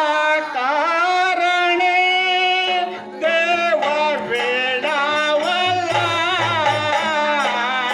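A live Dashavatari folk-theatre song: a single voice singing a wavering, ornamented melody. A steady held tone joins about three seconds in, and low drum beats enter near the end.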